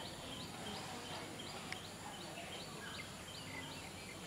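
A bird calling, a short high note repeated about three times a second, over faint steady background noise.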